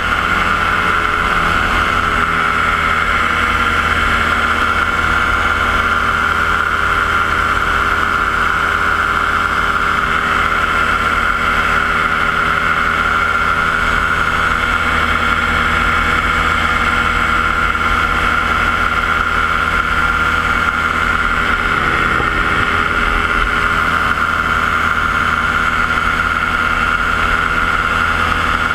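Paramotor's Yamaha JR120 engine and propeller running steadily in flight, a loud, even drone.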